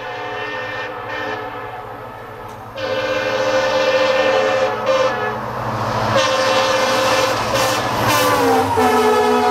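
EMD WDP4 diesel locomotive sounding its multi-tone horn at speed: one long blast, a short break about three seconds in, then a second long blast whose pitch drops as the locomotive passes close by near the end. Underneath runs the low drone of the engine and the rumble of the train.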